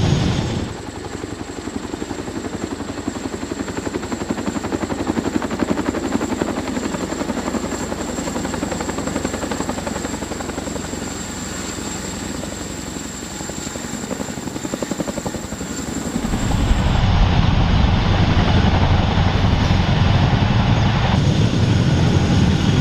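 Large military heavy-lift helicopter running, its rotor blades chopping in a fast even rhythm over a high steady turbine whine. The sound jumps louder and fuller about three-quarters of the way through.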